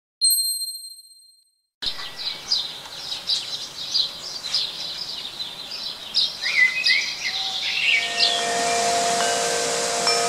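A single bright ding that rings and fades. Then songbirds chirping and singing, and from about eight seconds in a metal-tube wind chime ringing with several sustained tones over the birds.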